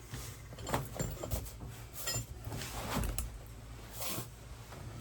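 Rummaging for wrenches: scattered clinks, knocks and rattles of metal hand tools being picked up and handled, a few with a brief bright metallic ring.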